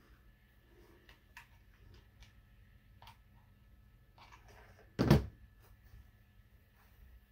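Faint clicks and rustles of hands working at a tabletop craft, then a single loud thump about five seconds in as the hot glue gun is set down on the table.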